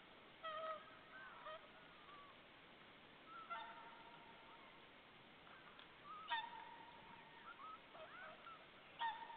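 Whooper swans calling: faint, repeated honking calls every second or few, the loudest about six and nine seconds in.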